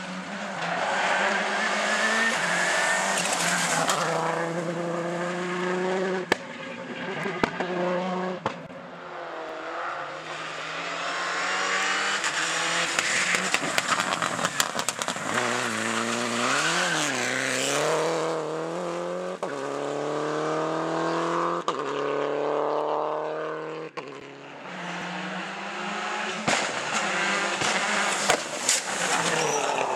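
Rally car engines run hard past the spectators, one car after another, the pitch climbing through each gear and falling back when the driver lifts or shifts. Sharp cracks come in between.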